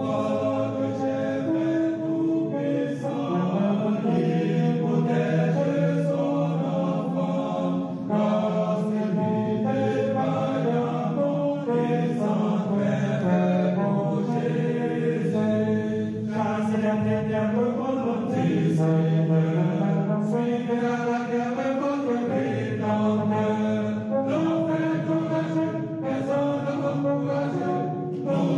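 Music with chant-like singing, the voice holding long notes that step and slide between pitches.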